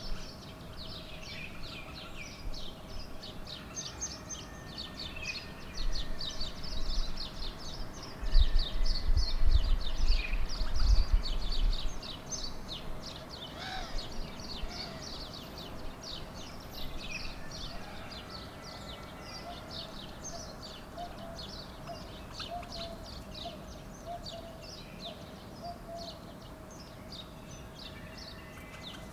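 A flock of small birds chirping continuously in many rapid, overlapping short calls. Bursts of low rumble come in about a quarter and a third of the way through.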